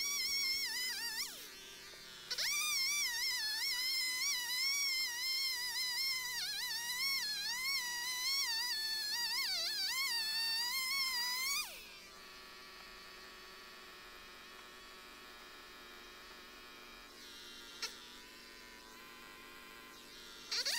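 Cordless electric chainsaw cutting through a log, a high motor-and-chain whine whose pitch wavers under load. It spins down briefly about a second in and revs back up, then winds down a little past halfway; after a quieter stretch with a single knock, it spins up again at the very end.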